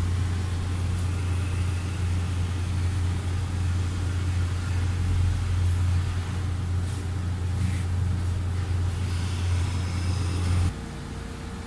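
Steady low machine hum, like a motor running, that cuts off suddenly near the end, leaving a quieter, fainter hum.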